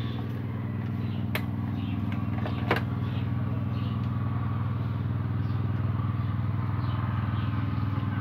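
A small engine running steadily with a low, even drone, with two sharp clicks about one and a half and nearly three seconds in.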